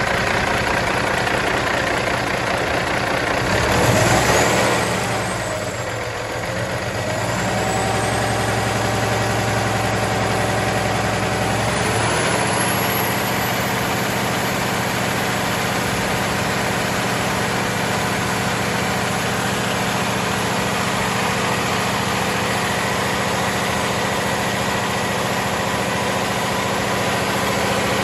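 2006 Cummins ISX15 inline-six diesel running, an engine with blow-by. It swells briefly about four seconds in, then settles into a steady idle.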